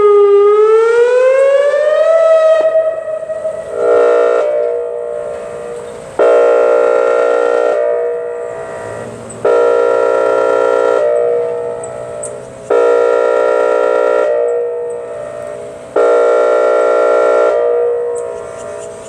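Whelen outdoor tornado warning siren finishing its wail tone, the pitch sweeping down and back up, then switching to its air-horn tone: about five chord-like blasts roughly three seconds apart, each fading away.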